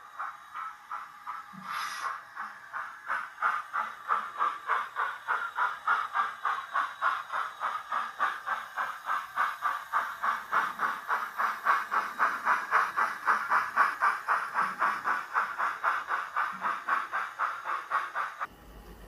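Model Black Five steam locomotive chuffing in a quick, even beat that grows a little louder and then cuts off suddenly near the end.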